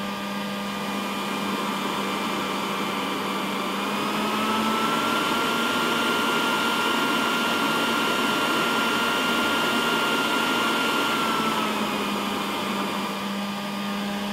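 Modified corded electric leaf blower running as a burner air supply: a steady motor whine over rushing air. The whine rises to a higher pitch and gets louder about four seconds in, as the round cover on its air intake is swung open, then drops back near the end as the cover is closed.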